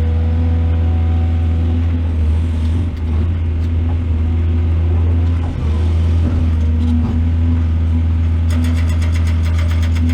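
Heavy construction machine's engine running steadily with a deep, even hum. Near the end a fast, regular ticking or clatter joins it.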